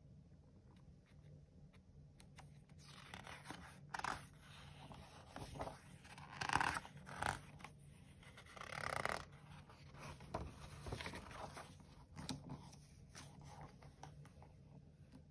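Paper pages of a picture book being handled and turned: a run of rustles and scrapes, loudest in the middle.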